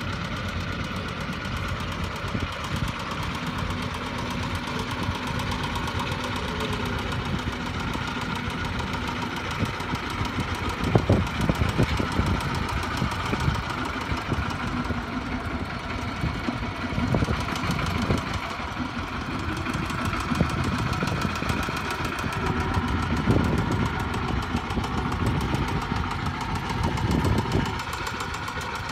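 Two-wheel walking tractor's single-cylinder diesel engine running steadily with a knocking beat while it pulls a loaded trailer, with a few louder knocks along the way.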